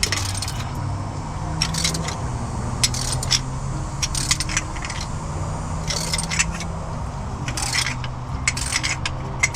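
Hand tools on the water pump bolts of a Chevrolet C10: a series of short, sharp metal clinks and scrapes, scattered irregularly, over a low steady drone.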